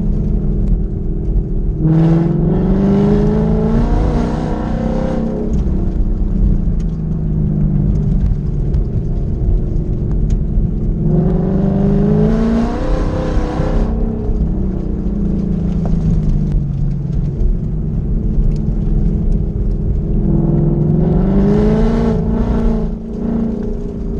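2020 Ford Mustang GT's 5.0-litre V8 heard from inside the cabin, accelerating hard three times, about nine seconds apart, each pull rising in pitch for about three seconds without a gear change, then easing back to a steady part-throttle drone between pulls.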